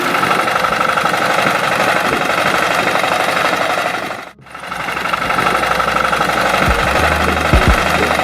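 A small engine running with a steady, rattling knock. The sound drops out briefly about four seconds in, then carries on.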